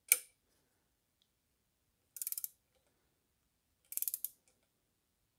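Ratcheting torque wrench clicking on its return strokes while it tightens the screw of a 3D-printed valve spring compressor. There are two short runs of rapid clicks, about two seconds apart.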